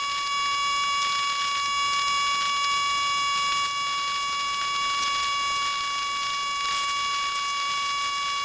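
Northstar 4000 PSI pressure washer running steadily, its water jet blasting through a thick oak root: a constant high whine over a hiss.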